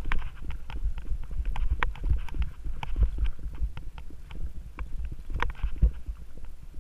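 Mountain bike riding over a dirt singletrack trail: a continuous low rumble of the ride with frequent irregular clicks and rattles from the bike jolting over bumps and roots.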